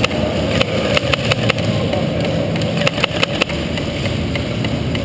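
Airsoft gunfire during a game: irregular sharp cracks of shots and BB hits, coming in clusters, over a steady low hum.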